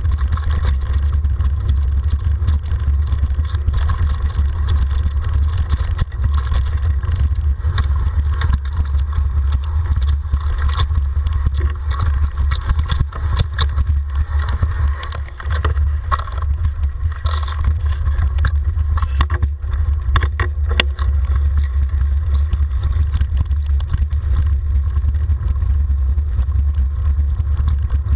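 Wind and road rumble on a bike-mounted camera's microphone as a mountain bike rolls down a gravel track, with the bike rattling and knocking over bumps, several sharp knocks about twenty seconds in.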